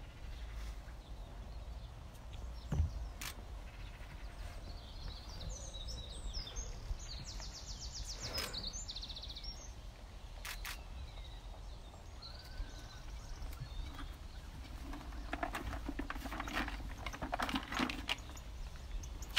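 Quiet ambience around an elephant herd that is making almost no sound: a low steady rumble, a few soft knocks and rustles, and a bird's rapid trill about seven to nine seconds in.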